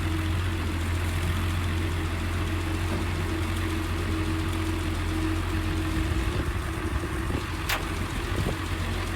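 Engine of the vehicle towing a truck, running steadily at a low, even speed with a deep steady hum; its note shifts about six seconds in.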